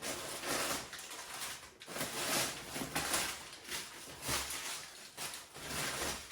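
Packing padding being handled and pulled about inside a cardboard kit box, making a run of short rustles and scrapes.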